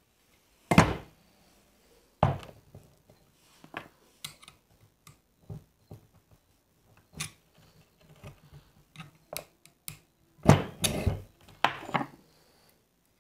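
Knocks and small metallic clicks from the barrel and compression tube of a disassembled Gamo Shadow 1000 break-barrel air rifle being handled. One loud knock comes about a second in and another a little after two seconds, with scattered light clicks in between, and a cluster of loud knocks near the end.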